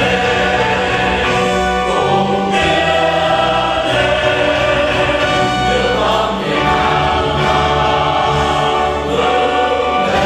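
A choir singing an anthem with orchestral accompaniment, played for a flag salute with the audience standing at attention.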